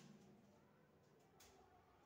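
Near silence: room tone, with one faint click about one and a half seconds in.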